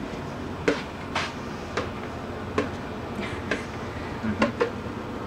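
Kitchen clatter: about nine light, irregular knocks and clicks of utensils against dishes and a baking pan.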